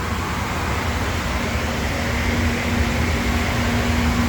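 Steady drone of running machinery, with a low steady hum tone joining about two seconds in.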